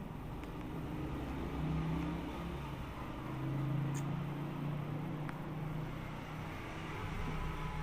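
Road traffic: a motor vehicle's engine running with a low hum that grows louder twice, about two and four seconds in, as it passes.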